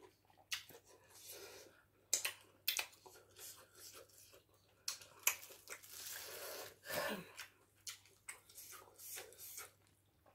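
Close mouth sounds of eating fufu and soup by hand: wet smacking, chewing and finger-licking in quick short clicks. About six seconds in comes a longer crinkle of plastic wrap as a lump of fufu is pulled from it.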